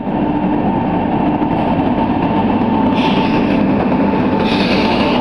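Electric-locomotive-hauled express train with LHB coaches passing through a station platform at speed. The loud, steady rush of wheels on rail carries a steady whine. From about 3 s in, bursts of clatter come roughly every one and a half seconds as the coaches go by.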